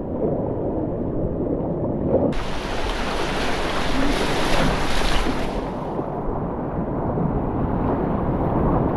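Whitewater rapids rushing, loud and steady, with wind and water buffeting the microphone. About two seconds in, the sound turns brighter and hissier.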